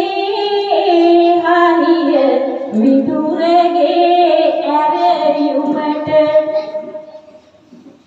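A woman singing Sinhala verse (kavi) solo into a microphone, one voice drawing out long, gliding notes, her line trailing off about a second before the end.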